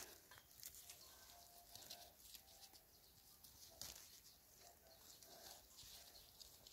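Near silence: faint outdoor ambience with scattered faint clicks and a few short, faint tones.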